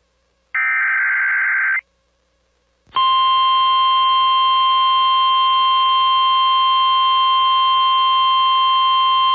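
NOAA Weather Radio emergency alert: a short, harsh burst of SAME header data about half a second in, then after a second's pause the steady 1050 Hz weather alert tone, a single loud held beep that starts about three seconds in and does not change.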